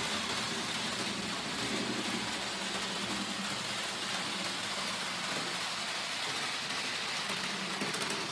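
Rivarossi HO-scale diesel locomotive and its train running around the layout, a steady hum and rattle of the small motor and wheels on the rails, coasting on the power pack's momentum setting after the power is cut. The owner takes its noisy running for a sign that it needs lubrication.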